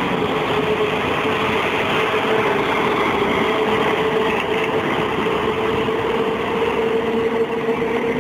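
Articulated Ikarus 280 city bus passing close by, its diesel engine running under load with a steady whine that climbs slightly in pitch over the last few seconds, over road and traffic noise.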